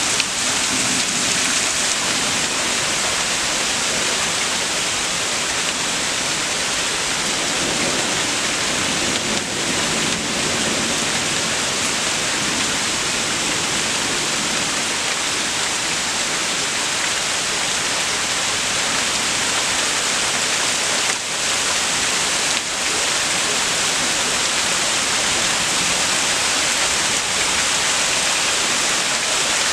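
Rain falling steadily in a thunderstorm: a constant, even hiss.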